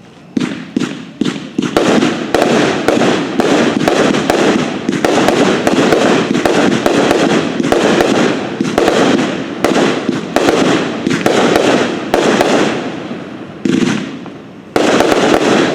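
A 30-shot Red Rhino Ravaged firework cake firing, its shots and bursts following one another in a dense, continuous barrage like a finale. It starts about a third of a second in, eases into a short lull near the end, then fires a last volley.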